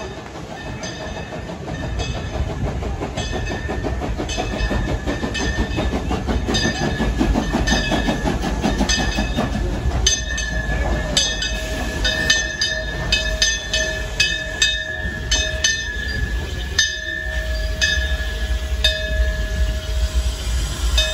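Narrow-gauge steam locomotive No. 14 and its passenger cars rolling slowly into the station: a low rumble with wheels clicking over the rail joints, the clicks coming thicker about halfway through as the engine draws close. A thin steady squeal sounds above it, joined by a lower tone in the second half.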